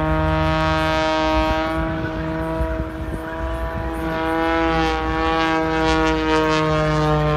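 Single-engine propeller aerobatic plane in a dive, its engine and propeller making a strong, even droning hum. The pitch drops slightly in the last couple of seconds.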